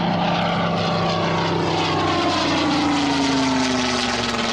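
Propeller-driven piston aircraft flying past, a steady engine drone whose pitch drops from about two seconds in as it passes.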